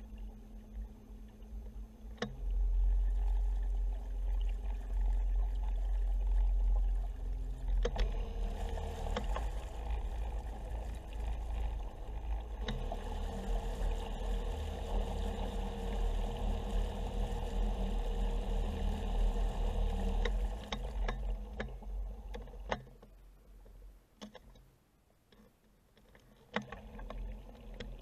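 Minn Kota Turbo 50 electric trolling motor running submerged in a tub of water, its propeller churning the water. The sound steps up a couple of seconds in and shifts again around eight and thirteen seconds. It dies down after about twenty seconds, nearly stops for a few seconds, then picks up again near the end, with a few sharp clicks along the way.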